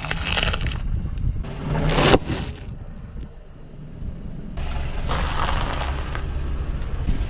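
A car tyre presses down on a flat LED floodlight, and its housing cracks and breaks in two noisy bursts over the first two and a half seconds. After a quieter spell, a car tyre rolls over an open bag of corn puffs and crushes them in about a second and a half of crunching. A car engine runs low underneath throughout.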